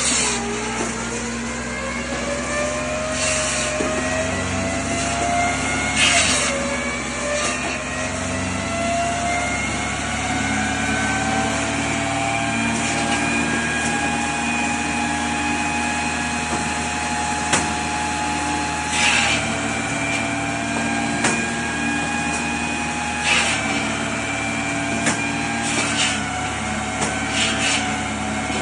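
Homemade drum (revolver) firewood saw running steadily with a whining tone. Several times, at irregular intervals, a short rasping burst comes as the blade bites into wood, and the whine briefly dips in pitch under the load.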